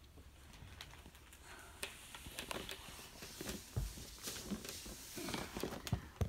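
Faint scattered taps and clicks of small hard plastic toy figurines being moved and set down on a plastic tabletop, with a couple of louder knocks about four seconds in and near the end.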